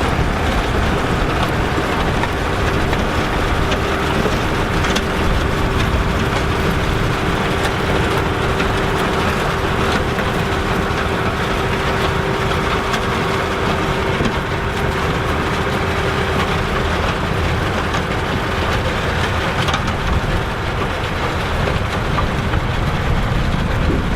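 Massey Ferguson 3070 tractor's diesel engine running steadily, with a faint held tone through the middle that fades out a little past halfway.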